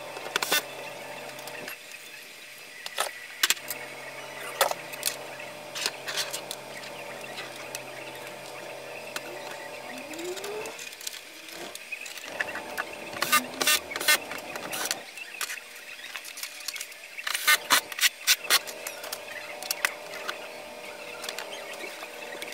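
Hand tools and metal parts worked on the plastic back of an LCD TV: clicks, clinks and knocks of screws and a steel wall-mount bracket being fitted and screwed down, with quick runs of clicks in two places and a short squeak about ten seconds in. A faint steady hum runs under the first half.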